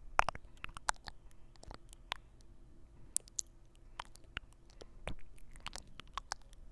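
Close-miked ASMR mouth sounds: irregular wet clicks, pops and smacks, some sharper than others, with no steady rhythm.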